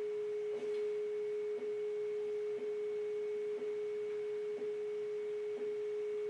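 Wi-Fi signal-strength tone from the Wolf WiFi Pro tablet app: a steady pure tone at one pitch, with a slight click about once a second. The pitch is set by the signal strength of the tracked access point, here holding steady.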